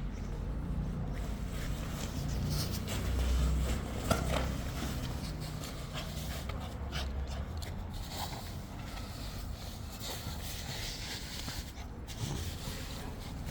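A Labrador puppy panting, with a sharp knock about four seconds in.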